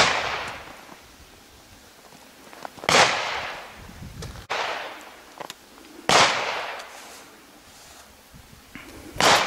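Gunshots at an outdoor range. A sharp blast from the antique German drilling comes right at the start, and three more bangs follow about three seconds apart, each fading away in a long echo. A few quieter clicks come between them as the drilling is broken open to reload.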